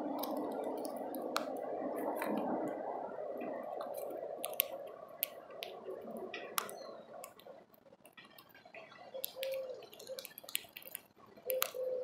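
Sharp, irregular clicks and taps, like birds pecking and handling seed at a feeder, over a low hiss that fades out about two-thirds of the way through. Near the end, short low hooting notes repeat.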